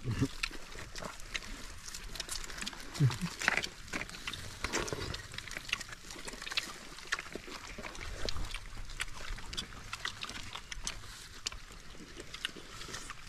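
People eating with their hands: irregular wet chewing and lip-smacking clicks over a low rumble, with one short low voice sound about three seconds in.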